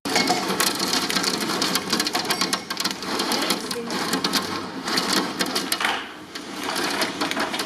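Heavy storm rain striking a hard surface close to the microphone, a dense run of rapid drop impacts that eases briefly about six seconds in.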